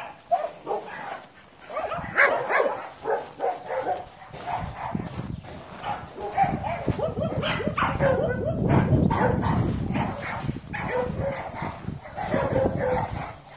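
Dogs whining and yipping in short, repeated calls, with a stretch of low rumbling noise in the middle.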